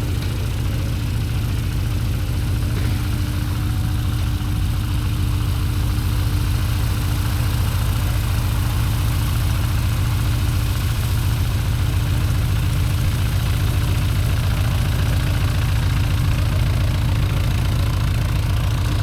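Gas engine of a radio-controlled model plane running steadily at an even speed, with a rapid low pulsing and a steady hum.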